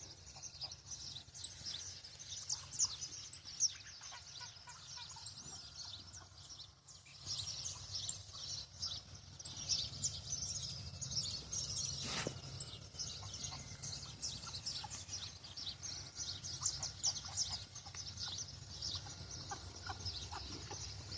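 A chorus of many birds chirping and calling at once, a dense continuous twittering over a low steady background hum, with a single sharp click about twelve seconds in.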